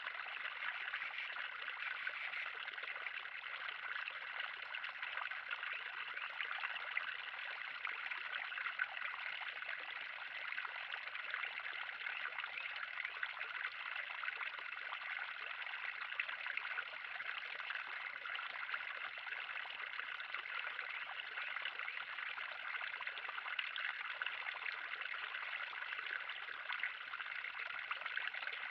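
Water running and trickling steadily into a 3000-gallon pond, an even splashing hiss that doesn't change.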